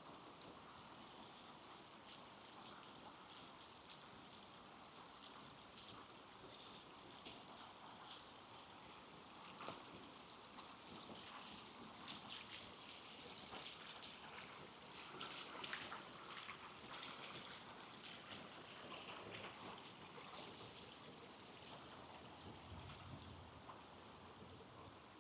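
Faint wet forest ambience after rain: a steady watery hiss with many small scattered crackles and ticks, busiest in the middle.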